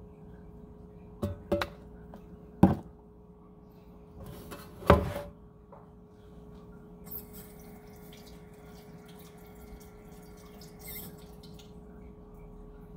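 A few sharp knocks and clicks of a metal air fryer basket being handled and set down on a wooden counter, the loudest two about three and five seconds in, over a faint steady hum.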